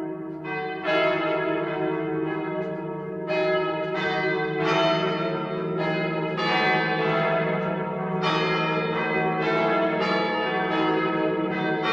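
Church bells pealing: a fresh strike every half second to a second over the ringing of the ones before, with a steady low hum under it.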